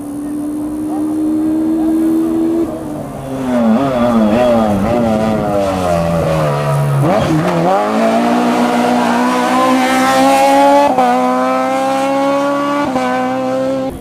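Rally car engine at a hairpin during a hill climb: a steady note, then revs wavering and dropping through downshifts under braking to a low point, then climbing hard out of the bend with two upshifts about two seconds apart.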